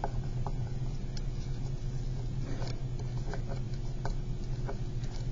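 A square of origami paper being handled and creased on a tabletop: scattered soft paper crinkles and taps, about eight in all, over a steady low hum.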